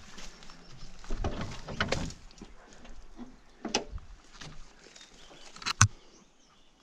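Footsteps crunching and rustling in dry undergrowth, with scattered knocks and one sharp click near the end.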